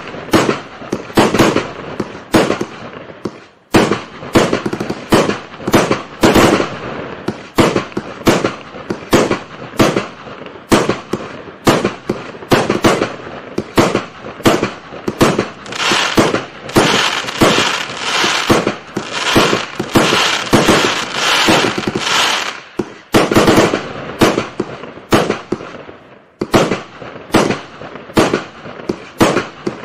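A 300-shot, 25 mm fireworks cake firing in rapid succession, its shells going off in sharp bangs about two a second. The bangs run denser in the middle, with short lulls near the start and near the end.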